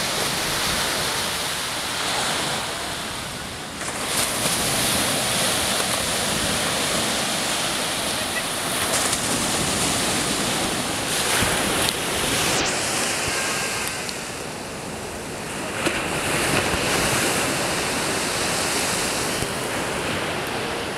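Baltic Sea surf breaking and washing up a sandy beach: a steady rushing that swells and ebbs as the waves come in.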